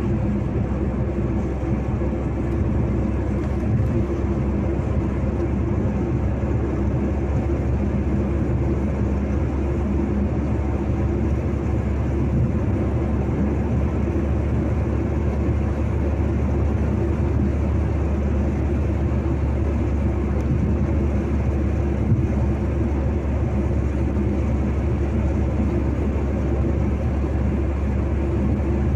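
A car driving steadily at road speed, heard from inside the cabin: a continuous low rumble of engine and tyres on the road.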